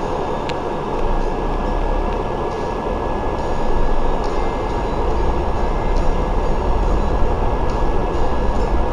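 Cabin rumble of a double-decker bus on the move, heard from the top deck: steady engine and road noise with occasional light rattles, growing a little louder about halfway through.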